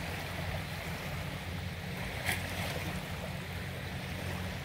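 Small outboard motor pushing an inflatable dinghy, running with a steady hum, with water rushing past the hull. There is one brief tap about two seconds in.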